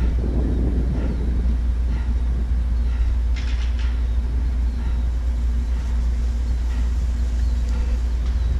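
Sopwith Pup replica's engine idling on the ground with a steady low drone. The engine is running very hot after a flight cut short by extremely high cylinder head temperature, and is smoking.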